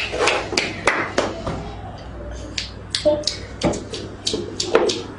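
A woman clapping her hands at a steady pace, about three claps a second, stopping about a second in. From about three seconds in comes a quicker run of lighter smacks and clicks as she mimes eating.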